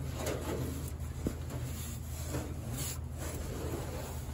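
A gloved hand wiping rust remover over the bare, sanded steel underside of a 1960 Cadillac hood: repeated rubbing swishes about twice a second, with a single sharp tick about a second in. A steady low hum runs underneath.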